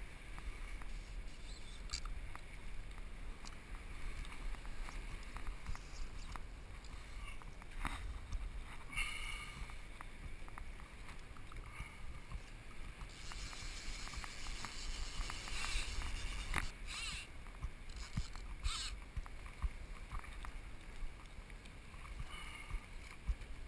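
Water sloshing against a plastic sit-on-top kayak's hull as it drifts, with scattered small knocks and rustles from handling the fly rod and line.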